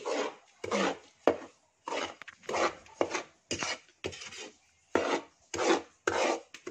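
A long-handled metal spoon scraping and stirring dry flour around a metal pan, in repeated scraping strokes a little under two a second. The flour is being dry-toasted for polvoron and is kept moving so it browns without burning.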